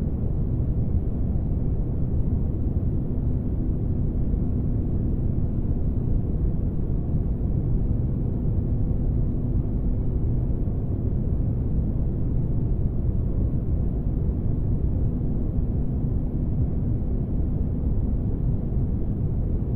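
Steady low rumble of spaceship-interior ambience noise for sleep, with a faint steady hum.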